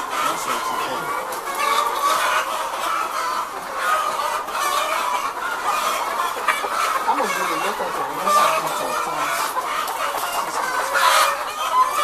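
A large flock of caged brown laying hens clucking, many calls overlapping at a steady level.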